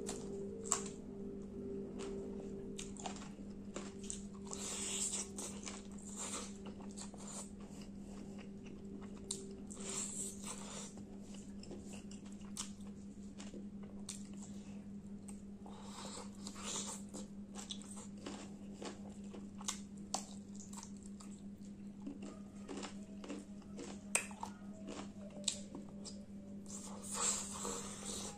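Close-up chewing and biting of chicken curry and rice eaten by hand, with many short wet mouth clicks and smacks, over a steady low hum.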